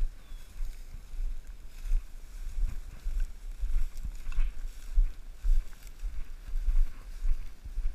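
Uneven low rumbling of movement and wind noise on a camera carried by a Labrador retriever moving through tall dry grass, with faint brushing of grass against it.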